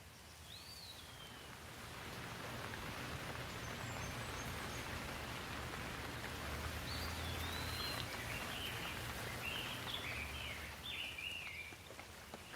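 Steady rain falling, growing louder about two seconds in and easing off near the end, with a low rumble beneath it. A bird chirps once near the start and then gives a quick run of chirps in the second half.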